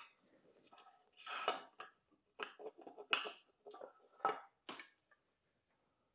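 Several short clinks, knocks and rattles of a carbon bicycle fork, handlebar and cables being handled as the fork's steerer is fitted up into the frame's head tube.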